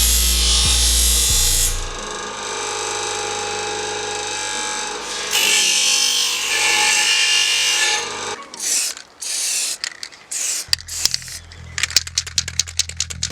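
Power tool running against a metal bike part, a steady harsh grinding noise that gets louder for a couple of seconds midway, over background music. After about eight seconds it breaks into short separate runs, then a fast series of clicks near the end.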